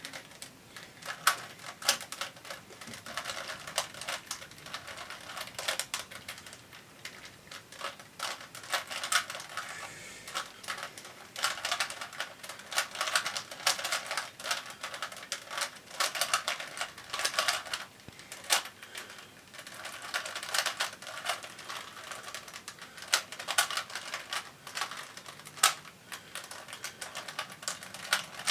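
Rubik's Cube being turned quickly by hand: fast, irregular runs of plastic clicking and clacking as the layers snap round, with short pauses between runs.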